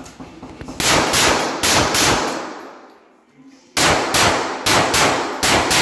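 Pistol shots fired in a quick string, about four at roughly half-second spacing, then after a pause of about a second and a half another six or so. Each shot rings with a short echo under the range's roof.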